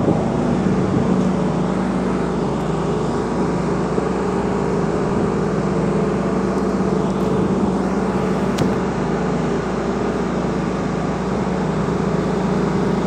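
Motorboat engine running steadily under way, a constant drone over a steady rushing hiss of wind and water.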